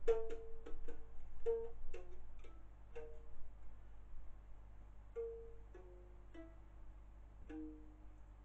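Ukulele picked note by note as the opening of a song: a quick run of about eight plucked notes in the first three seconds, then four slower notes that ring on, growing quieter toward the end.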